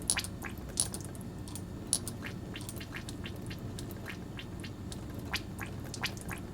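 Close-miked ASMR sounds of a glass dropper and scalp solution being worked into hair: irregular soft clicks and sharp little ticks, a few brighter clinks among them, over a steady low hum.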